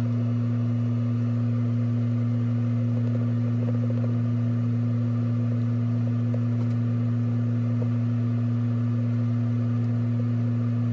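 A steady low hum at an unchanging level, with no breaks or changes.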